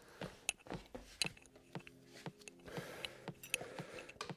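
Irregular clicks and knocks as a spoked motorcycle wheel is handled and its tyre is levered off the rim with a tire iron.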